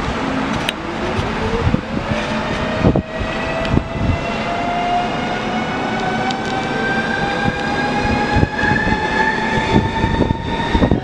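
Train noise: a steady rumble with scattered clicks, and a whine that climbs quickly over the first couple of seconds and then keeps rising slowly.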